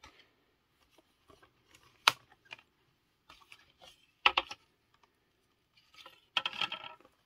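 Plastic Blu-ray keep case and cardboard slipcover being handled and turned over: a few sharp clicks and taps about 2 and 4 seconds in, then a brief scraping rustle near the end.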